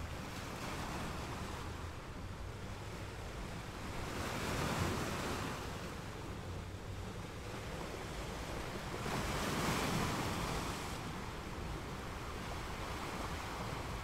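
Sea waves washing in: a rushing noise that swells twice and falls back, over a steady low rumble.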